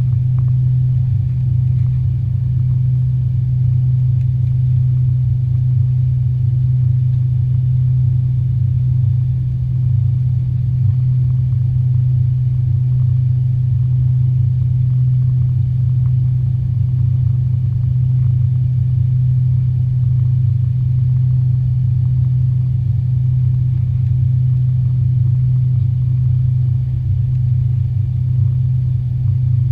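Steady low drone inside the cabin of an Avro RJ85 airliner, from its four turbofan engines and the airflow, holding an even pitch and level throughout.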